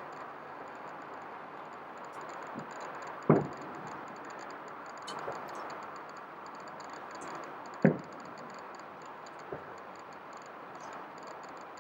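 Fireworks shells bursting: two loud booms about four and a half seconds apart and a couple of fainter pops, over a steady background hiss.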